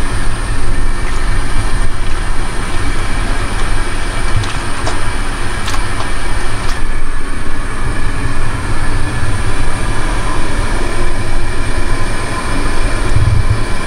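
A large pot of salted water boiling hard, with a steady low rumble and a few faint knocks, as an octopus is being boiled in it.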